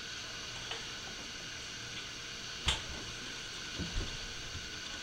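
Quiet kitchen room tone with a steady faint hum, a single sharp click a little past halfway, and two soft thumps near the end.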